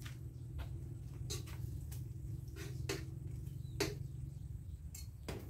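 Light, scattered clicks and taps of utensils and dishes at the stove as fried dried fish is dished onto a plate, about ten in all, over a steady low hum.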